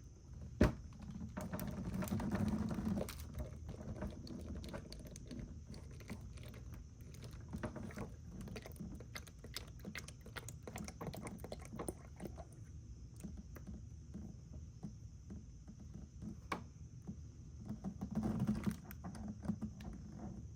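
Scattered light clicks and taps of hands working on a WEN 4800 inverter generator during its first oil change, with louder handling noise about two seconds in and again near the end. A steady high insect trill runs underneath.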